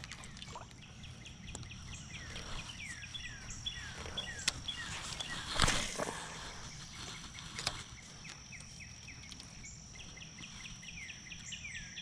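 Faint pondside outdoor sound: a bird repeats quick downward-sliding chirps in two runs over a steady high-pitched drone. A brief swish comes about halfway through.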